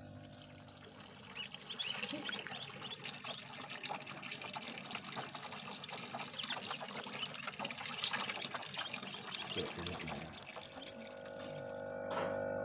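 Water trickling and splashing around ducklings paddling in shallow water, with many short, faint high chirps. Near the end this gives way to a steady hum.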